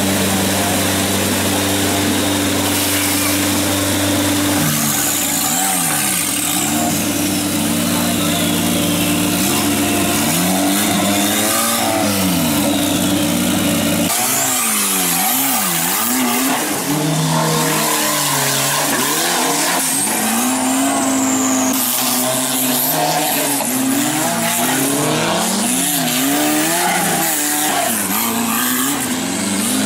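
Off-road race buggy's engine held steady at first, then revved up and down over and over as the buggy churns through mud and water and drives on along a dirt track.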